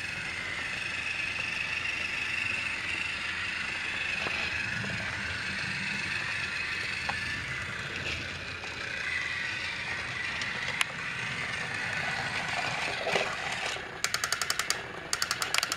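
Trackmaster motorized toy train engine running along plastic track: a steady motor whine with the rattle of the wheels and gears, the whine dropping slightly in pitch about halfway. Near the end it breaks into a fast, even clicking.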